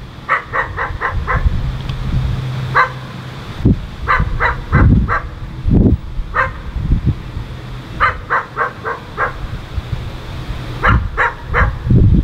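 Dog barking in quick runs of four or five barks, repeated over and over, over a low rumble with a few dull thumps.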